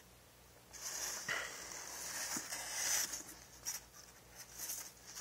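Rustling of crumpled paper towel packing and light clicks of a plastic deli cup being handled as it is lifted out of the shipping box. The rustle is steadiest in the first half, with a few scattered clicks and scrapes after it.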